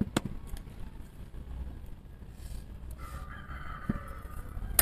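A rooster crowing once, a call of about a second that starts about three seconds in. A sharp knock comes at the very start.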